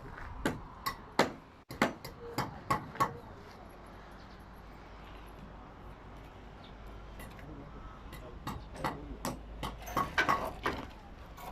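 Hammer blows on timber, as in nailing up rooftop formwork. There is a quick run of strikes in the first three seconds, a pause, then another run of blows near the end.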